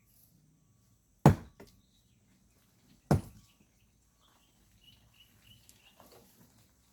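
Two sharp strikes of a hand digging tool into the ground, about two seconds apart, as miners dig volcanic sand by hand. Faint high chirps follow near the end.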